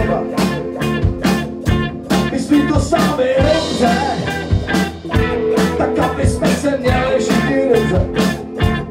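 Live rock band playing: electric guitars and bass guitar over a drum kit keeping a steady beat.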